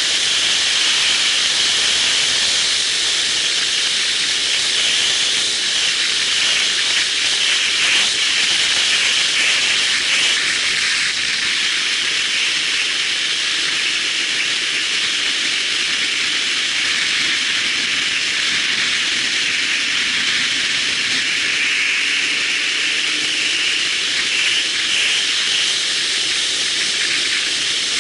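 Steady rushing hiss of wind and road noise while riding a motorcycle at speed, wind buffeting the action camera's microphone, with only a faint engine note beneath it.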